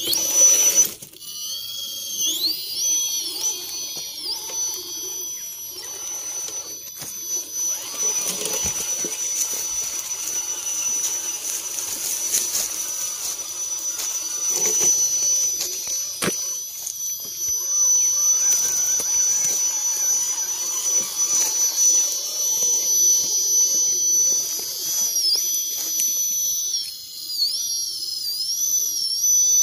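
Electric motor and gearbox of a 1/10-scale RC rock crawler whining at a high pitch as it crawls, the pitch dipping and recovering a couple of times near the end as the throttle eases off and comes back on.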